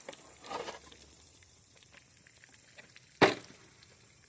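A single sharp knock or bang a little over three seconds in, with a short ringing tail, over faint handling and rustling noise.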